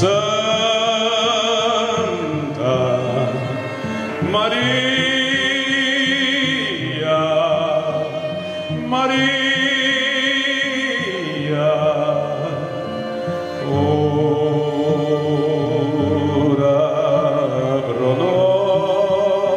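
A male singer sings through a microphone in long held phrases with vibrato, accompanied by a string ensemble of violins and cello.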